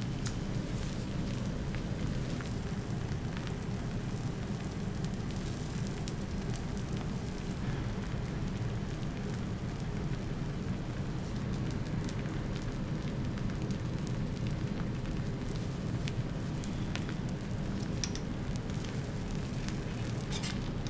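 Food sizzling on a hot griddle while egg toast is cooked: a steady hiss with scattered crackles and pops over a steady low hum.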